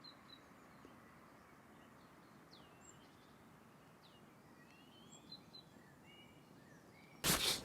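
Faint songbirds calling and chirping at a spring riverside camp, short whistles and sweeping notes over a quiet hiss. A short, loud burst of noise breaks in near the end.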